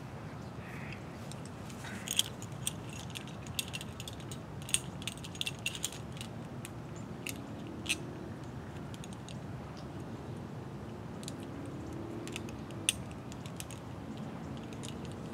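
Metal climbing hardware (carabiners and a rope device on a climbing harness) clicking and clinking as the rope is handled: scattered sharp clicks, busiest in the first half and again near the end, over a steady low background.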